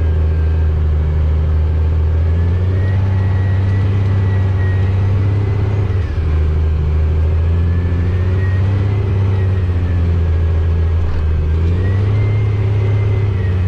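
Heavily loaded grain truck's engine running steadily under load as it pulls out through snow, with a brief drop about six seconds in and the engine pitch rising near the end.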